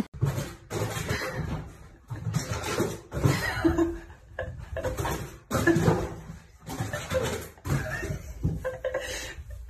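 A person laughing hard in repeated breathy bursts, about one a second.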